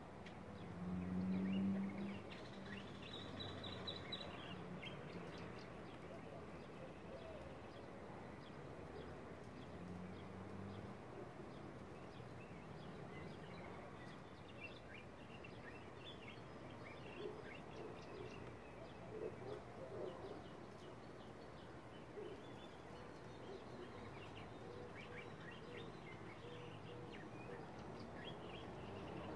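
Faint outdoor background with scattered, distant bird chirps and a brief low sound about a second in.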